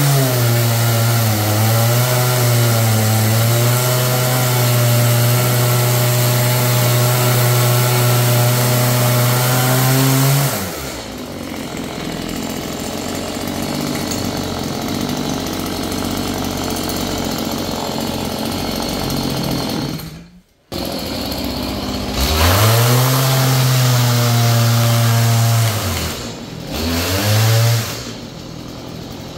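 Petrol two-stroke chainsaw cutting into an old wooden ceiling beam, held at high revs for about ten seconds, then dropping to idle. About two-thirds through it revs up again, with a few quick dips and rises in the engine note, and falls back toward idle near the end.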